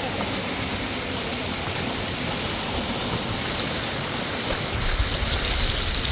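River water running steadily over rocks, with a low rumble coming in near the end.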